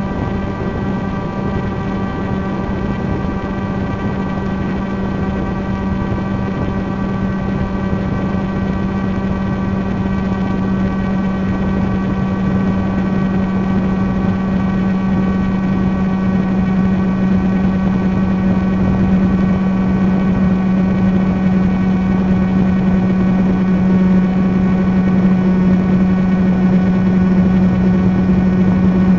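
Multirotor drone's motors and propellers buzzing steadily in flight, one unchanging pitch with many overtones, growing slightly louder toward the end.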